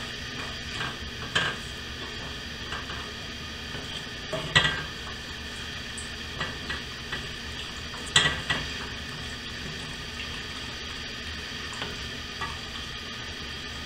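Metal tongs scraping and clacking against a cast iron pan as steak and pepper fajita filling is scooped out, with sharp clanks about one, four and a half, and eight seconds in. Under them the pan gives a steady low sizzle.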